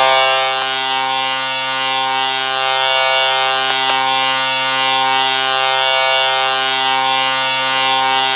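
Laval Rocket hockey goal horn sounding one long, steady, low-pitched blast that holds for the whole stretch and ends near the close.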